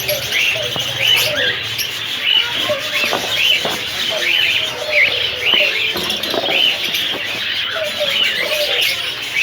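Many birds chirping together without a break, a dense chatter of short, quick calls of several pitches overlapping.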